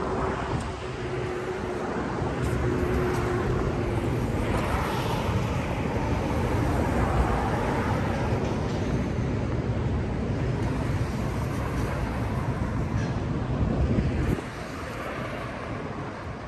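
Urban traffic noise: a steady rumble of passing vehicles that drops off abruptly about fourteen seconds in.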